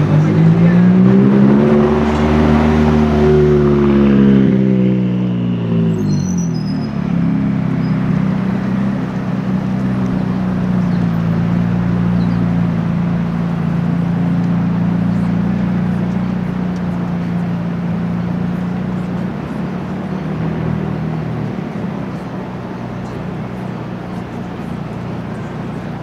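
McLaren twin-turbo V8 accelerating past, its engine note rising and then falling over the first few seconds. After that comes a steady low V8 drone from supercars creeping in traffic, which fades near the end.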